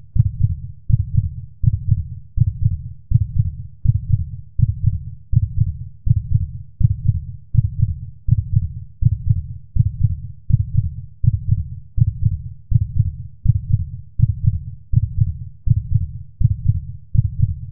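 Heartbeat: deep, even thumps repeating steadily at about 80 beats a minute.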